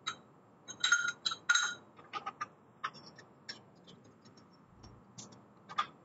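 Steel collet block and milling-machine vise parts clinking and knocking together as they are handled. A few ringing metal clinks come about a second in, followed by lighter scattered clicks and taps.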